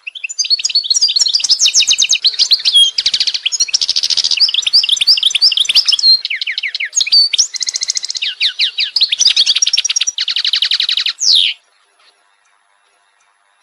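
A small songbird singing a long, varied song of rapid trills and chirps, which stops shortly before the end.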